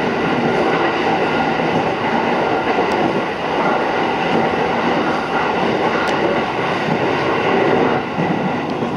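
Musashino Line electric train running at speed, heard from aboard: a steady rumble of wheels on rail with running noise.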